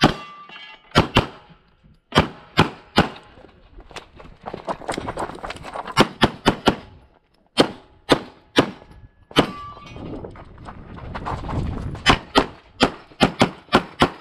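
Semi-automatic pistol firing about twenty shots, mostly in quick pairs and fast strings, with a pause of a couple of seconds near the two-thirds mark.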